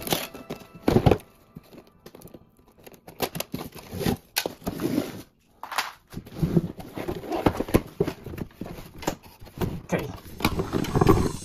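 Hands handling tools and plumbing parts at close range: irregular clicks, knocks and crinkly rustling, loudest about a second in and again near the end.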